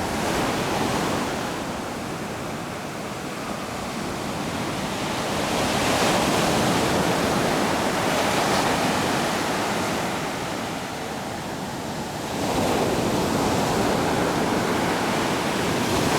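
Sea surf: waves breaking and washing up the shore as a loud rushing noise that swells and eases three times.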